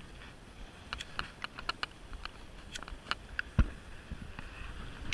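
Handling noise on a body-worn action camera: scattered sharp clicks and rubbing right at the microphone, with one heavy thump about three and a half seconds in.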